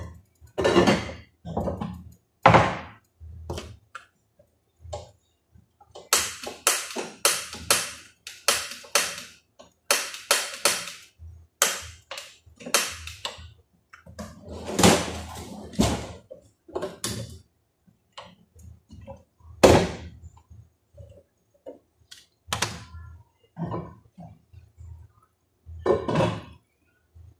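Cookware clattering on a gas stovetop: pots, pans and utensils knocking and clanking as they are handled. The knocks come in a quick, dense run through the middle, with a few louder single knocks before and after.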